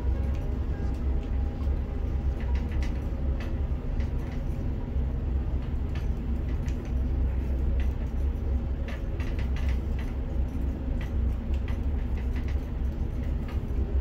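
Steady low rumble of a crane's machinery heard from inside the operator's cab, with faint scattered clicks.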